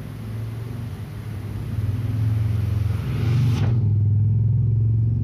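A motorbike engine running close by, a low steady hum that grows louder over the first couple of seconds and then holds.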